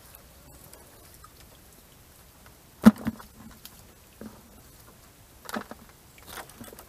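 Scattered rustles and short knocks from a fishing net being worked by hand over a plastic bucket. The loudest is one sharp knock about three seconds in, with a smaller one right after and another near the end.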